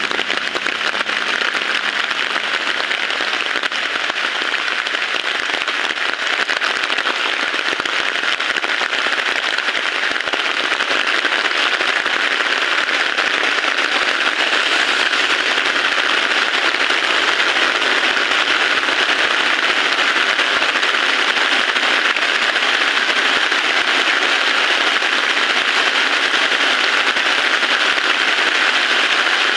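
Heavy rain falling in a steady, dense patter, with no thunder.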